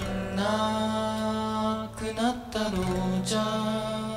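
A man singing slow, long-held notes to acoustic guitar accompaniment: two long notes with a short slide in pitch between them.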